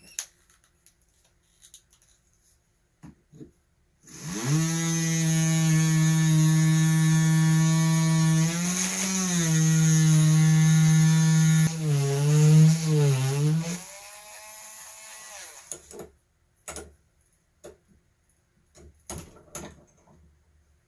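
Dremel rotary tool spinning up about four seconds in and drilling dry into a stone: a steady whine whose pitch sags and wobbles a few times as the bit is pressed into the rock. It runs quieter for a couple of seconds and stops, followed by a few small knocks.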